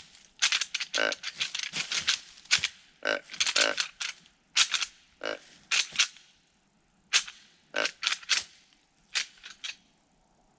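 Deer rattling bag clacked and shaken in rapid bursts to imitate whitetail bucks sparring: sharp clattering clicks, dense at first, then sparser, stopping near the end.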